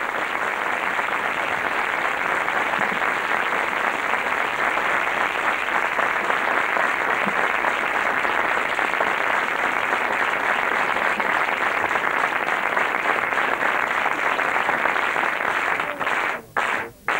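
Concert audience applauding, a dense steady wash of clapping. Near the end it breaks into regular pulses about two a second.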